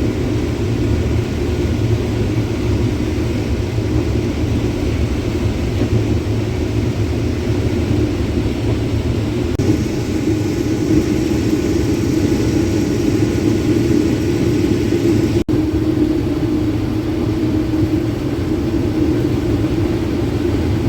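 Combine harvester running steadily while picking corn, a loud, even rumble with no change in engine pitch. The sound drops out for an instant about fifteen seconds in.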